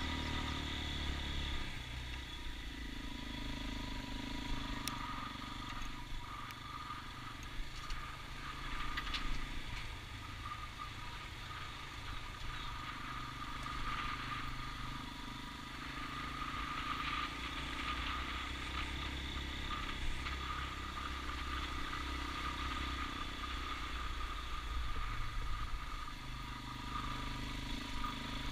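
Motorcycle engine running at low road speed on a gravel track, its note shifting up and down a few times as the throttle opens and eases, with a few light knocks from the road.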